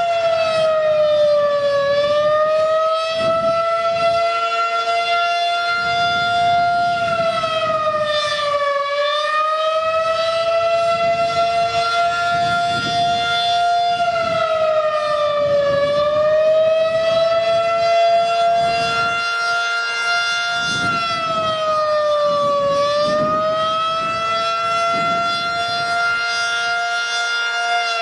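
Federal Signal 2001-SRN rotating outdoor warning siren sounding a loud steady alert tone, the tone dipping briefly in pitch about every seven seconds as the horn turns.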